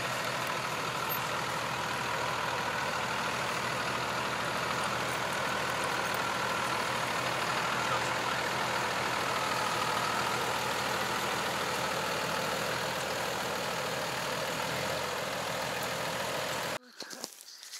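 A motor vehicle's engine running steadily under an even road-and-wind noise, which cuts off abruptly about a second before the end.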